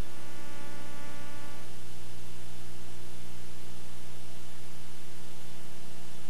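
Steady electrical mains hum and hiss from an old video transfer, with no clear sound from the game. For about the first second and a half a faint pitched tone with several overtones sounds over it and then stops.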